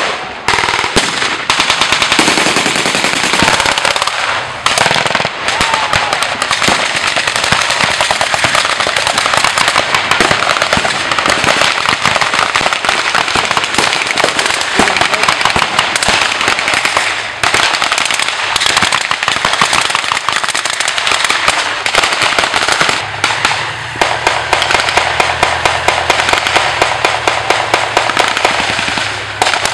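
Reenactors' small arms firing blanks in dense, continuous volleys, many shots a second with no real pause. Over the last quarter a low steady engine hum from a military vehicle runs beneath the gunfire.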